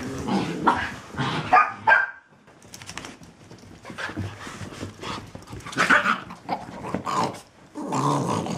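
Small dogs, Miniature Pinschers and Chinese Cresteds, barking at play in short bursts: loudest in the first two seconds, then again about six seconds in and near the end.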